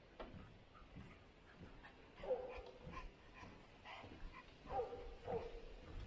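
A dog giving short, high whines: once about two seconds in and twice near the end.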